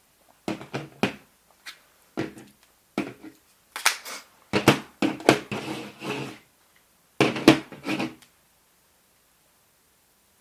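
Irregular clacks and knocks of iPhones and a small screwdriver being handled and set down on a hard work surface, in small clusters, stopping about eight seconds in.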